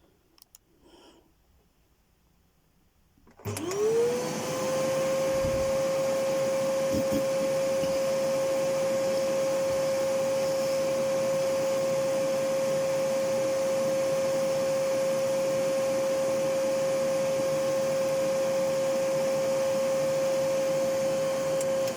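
Hoover Whirlwind vacuum cleaner switched on about three and a half seconds in. Its motor spins up with a quickly rising whine that settles into a steady tone over a rush of air noise. The whine peaks at around 530 Hz, which the owner takes to be probably a resonant frequency.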